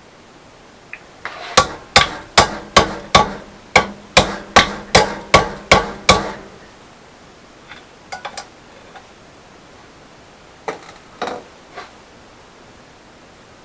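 Hammer blows on solid steel rod being bent to shape: about a dozen ringing strikes, a little over two a second, then a few lighter taps later on.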